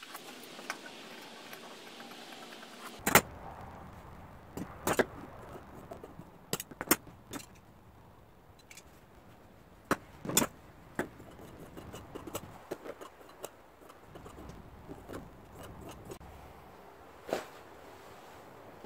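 Metal upholstery shears cutting through black vinyl for the first few seconds, a crisp rustling. Then scattered clicks, knocks and rustles as the shears are set down on the wooden bench and the cut vinyl pieces are handled and stacked, with a sharp knock about three seconds in.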